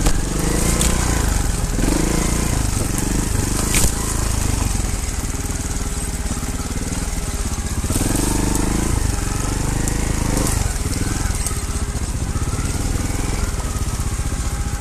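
Trial motorcycle's single-cylinder engine running at low revs with short throttle blips as it picks over rough ground, with a couple of sharp knocks about one and four seconds in.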